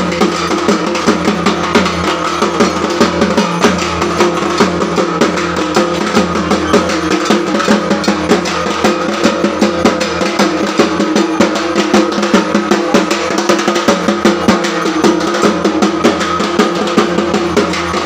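Dhak, the large Bengali barrel drum, beaten rapidly with thin sticks: fast, unbroken drumming with regular loud accents.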